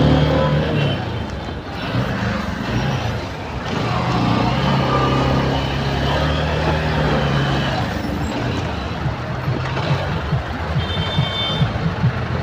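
Heavy truck traffic at close range: diesel truck engines running with a steady low hum over road and wind noise. A short high-pitched tone sounds about eleven seconds in.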